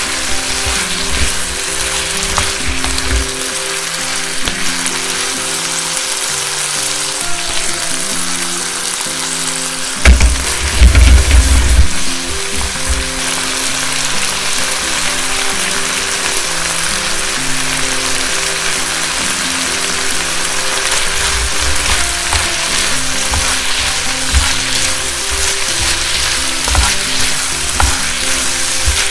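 Minced chicken, onion and red pepper sizzling steadily in a frying pan as they are stirred with a spatula, the sauce reducing into the ingredients. About ten seconds in there is a short burst of loud low thumps, and lighter low knocks come and go later. Background music plays throughout.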